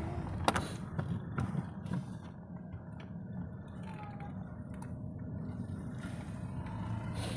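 Inside a car driving slowly: a steady low rumble of engine and tyres, with a few sharp knocks and rattles, the loudest about half a second in.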